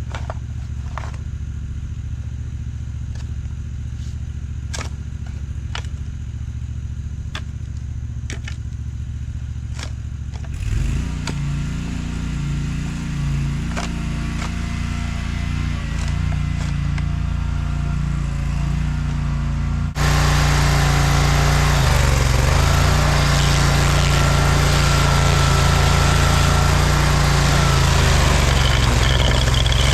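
Stump grinder's small gas engine running. It is low and steady at first, picks up about a third of the way in, then turns abruptly louder with a rough grinding roar for the last third as it works the stump.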